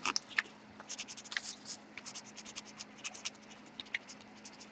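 Pen writing on paper: a quick, irregular run of faint scratching strokes.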